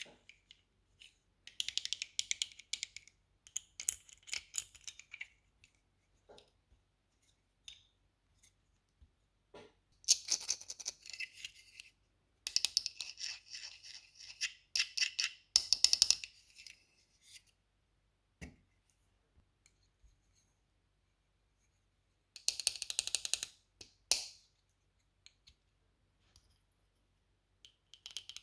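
Crinkling and clicking of plastic toy packaging and pieces being handled, in about five bursts of one to three seconds with quiet pauses between.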